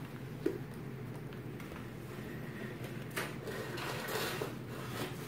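Small wooden chair knocking and scraping on a wooden floor as a toddler pushes and climbs on it: a knock about half a second in, then another knock about three seconds in followed by a longer scrape.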